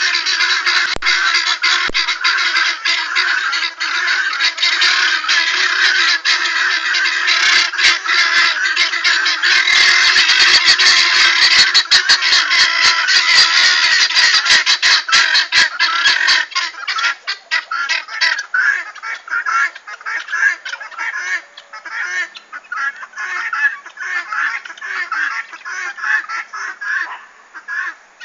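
A flock of helmeted guineafowl calling together: a dense chorus of rapid, repeated calls that thins to more scattered calls in the second half.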